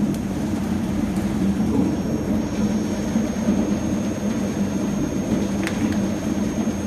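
Stainless-steel peeling machine running: a steady motor hum and rumble with no change in speed, and one faint click near the end.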